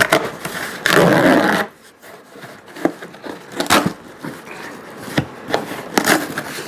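A package being opened and handled by hand: a loud scraping burst about a second in, lasting under a second, then scattered scrapes, rubs and clicks.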